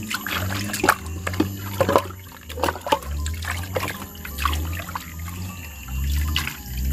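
Cut yardlong beans being washed by hand in a metal pot of water: irregular splashing and swishing, with trickles and drips as handfuls are lifted out of the water.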